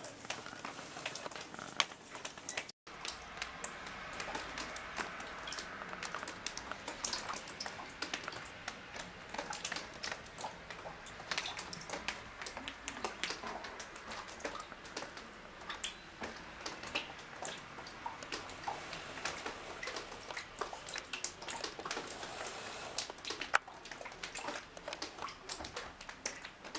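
Rainwater dripping and splashing through a leaking roof, many irregular drops landing one after another: the roof left open during repair is letting rain into the top-floor flat.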